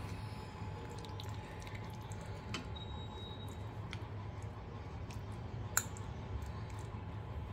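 Metal spoon scraping and clicking against a bowl as moist kheema is scooped out onto a plate, with scattered light clinks and one sharper clink near the end, over a steady low hum.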